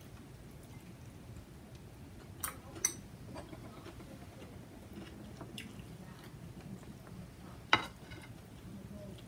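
Tableware clicks while eating: two light clicks of utensils on a bowl about two and a half seconds in, then a louder sharp clink near the end as a metal spoon knocks against a serving bowl while scooping food.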